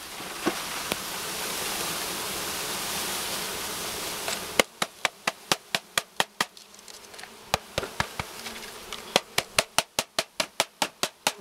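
Honey bees buzzing densely as a package of bees is shaken into a hive. About four and a half seconds in, the hiss gives way to a run of sharp knocks, several a second, with the buzzing going on underneath.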